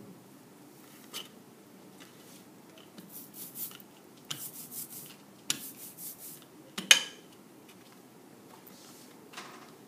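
Printmaking tools being handled at a table: a rubber brayer rolled back and forth in a series of short strokes, then a sharp clack about seven seconds in, the loudest sound, as something is set down hard.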